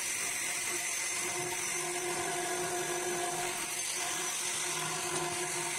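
A high-speed electric power tool running steadily at an even pitch.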